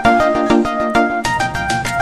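Background music: an upbeat electronic tune with a bright melody over a steady beat.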